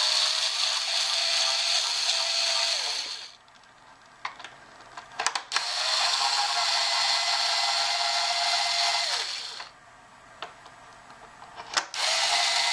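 A cordless electric screwdriver backs screws out of a plastic clock cabinet. Its motor runs steadily in three stretches of about three to four seconds each, the last starting near the end. In the short pauses between them come a few small clicks.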